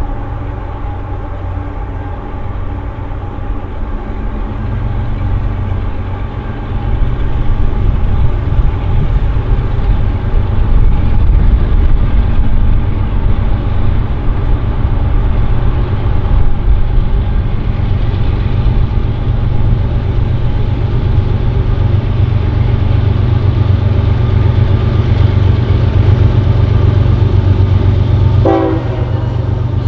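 CN freight train led by a GE ES44AC diesel-electric locomotive running, a heavy low rumble with steady tones that grows louder about seven seconds in. Near the end a few tones bend briefly downward.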